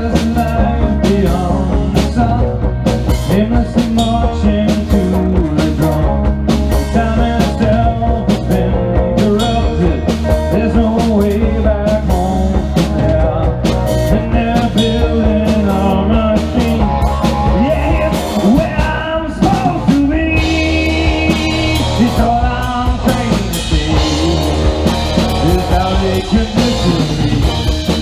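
Live rock band playing: electric guitars and bass guitar over a steady drum-kit beat, loud and unbroken.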